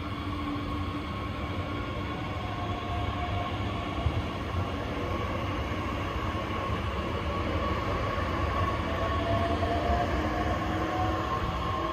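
DB class 442 Bombardier Talent 2 electric multiple unit moving along the track, with a steady rumble of wheels on rail and several whining tones from its electric traction drive. One whine rises in pitch in the second half, and there is a single short click about four seconds in.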